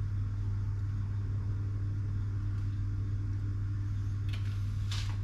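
Steady low hum, with a fainter higher tone that drops out about three seconds in, and a couple of faint clicks near the end.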